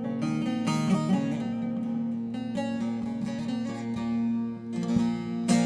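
Instrumental music: a plucked string instrument playing changing notes over a steady held low note, with no voice.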